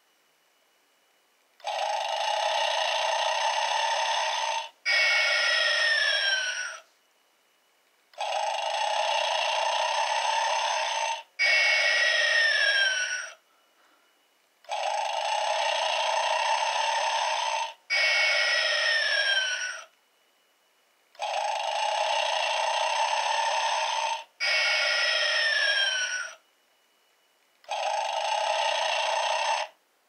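Gemmy animated Snoring Santa playing its recorded snoring through its small built-in speaker, thin with no low end. Each cycle is a long snore, a short gap, then a shorter snore with a whistle falling in pitch. The cycle repeats about every six and a half seconds, four full times and the start of a fifth.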